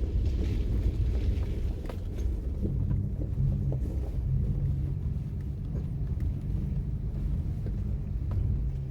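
Low rumble of a car heard from inside the cabin, with a steady low engine hum setting in a few seconds in.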